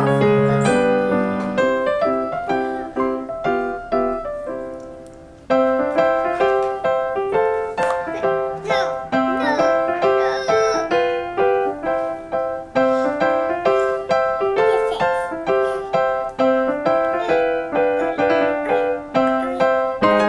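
Background piano music, a steady run of short, bright notes. About five seconds in it fades down and then starts again abruptly.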